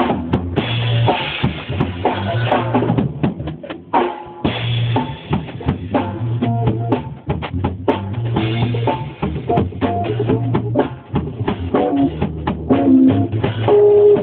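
Music with a drum kit: bass drum, snare and rimshots over a bass line, with a short break about four seconds in.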